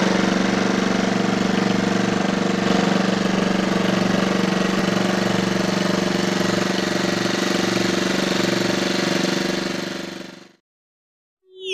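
Outrigger fishing boat's engine running at a steady speed, its even firing pulse holding constant, then fading out near the end.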